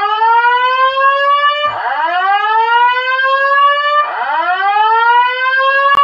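Building fire alarm sounding a repeating rising whoop tone: each sweep climbs in pitch for about two seconds, then drops back and starts again, about three times.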